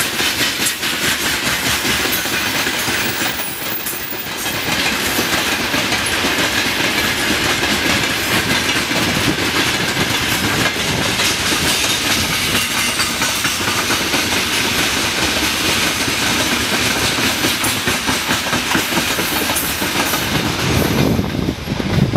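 Freight train of open gondola wagons rolling past, steel wheels clattering over the rail joints with a steady rumble. Near the end the last wagon passes and the clatter falls away.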